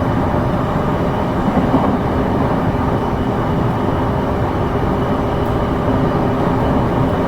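Running noise of a JR East E233-series electric train, heard from inside the car while travelling between stations: a steady rumble of wheels on rail, even throughout.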